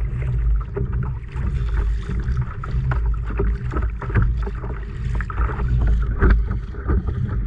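Wind buffeting the microphone in a steady low rumble, with choppy water lapping and slapping against a kayak hull and scattered small knocks.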